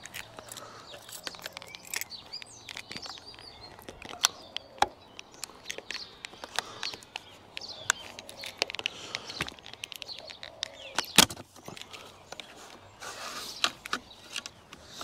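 Scattered small clicks and taps of a key and fingers pushing on the clip of a Holden VY Commodore's plastic outer B-pillar trim to release it, the loudest click about three-quarters of the way through. Birds chirp faintly behind.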